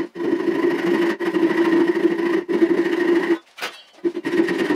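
Hand sawing with a Japanese pull saw, sped up fourfold, so the strokes run together into a fast buzzing drone. It breaks off briefly a few times, with a longer gap near the end.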